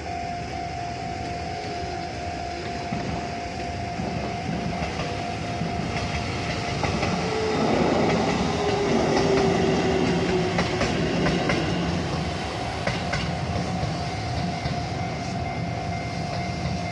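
Japanese level-crossing warning bell ringing steadily while an Aichi Loop Railway 2000 series electric train passes over the crossing, loudest about 8 to 10 seconds in, with a motor whine falling in pitch and wheels clicking over rail joints.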